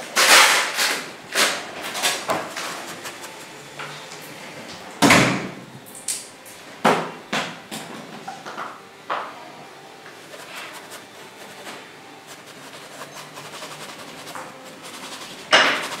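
A bristle brush scrubbing oil paint onto a stretched canvas on an easel, giving short scratchy strokes with the odd soft knock of the canvas. They come thick in the first second and around five to nine seconds in, one about five seconds in with a low thump, then sparse and quieter before a loud stroke near the end.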